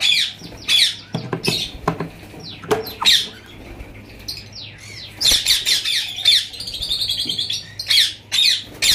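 Indian ringneck parakeets screaming in alarm: repeated harsh, falling-pitched screeches, crowding into a dense run about five seconds in. The birds are frightened by people close to their nests with chicks.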